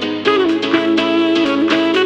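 Background music: a wind-instrument melody, like a saxophone, playing over a soft accompaniment; it comes in just at the start, replacing a plucked guitar pattern.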